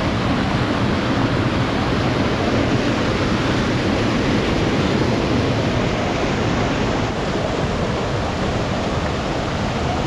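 Steady rushing of the Ganga's fast-flowing river water, turning a little quieter about seven seconds in.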